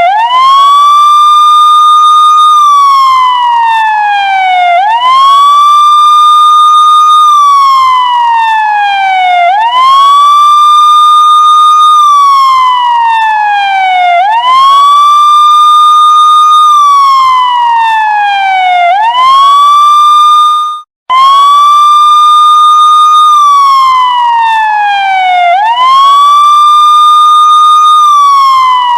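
Police siren wailing: each cycle rises quickly, holds a high note for about two seconds, then slides steadily down, repeating about every four and a half seconds. The sound cuts out for a split second about twenty-one seconds in, then starts again.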